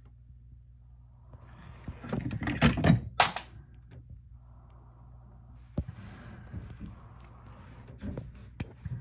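Handling noise from an inspection scope camera being moved through a cavity: a loud bout of scraping and rubbing about two seconds in, then a few sharp knocks near the end, over a steady low hum.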